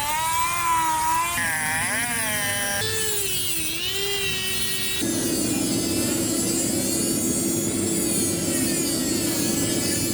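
Electric power tool working metal, its motor pitch sagging and recovering as it is pressed into the work, then running at a steady pitch with a dense grinding noise from about halfway. Abrupt jumps in the sound a little over a second in, near three seconds and about halfway.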